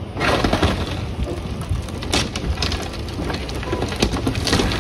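An excavator bucket tears into a building's wooden roof framing, with wood cracking and splintering in many close, sharp crunches. The excavator's engine runs steadily underneath.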